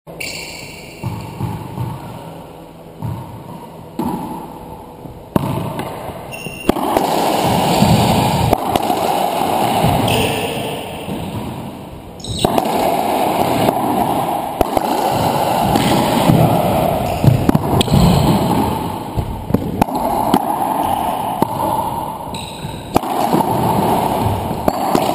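Racquetball rally in an enclosed court: repeated sharp cracks of the ball off the racquets and walls. A rushing noise swells about seven seconds in, once play is under way.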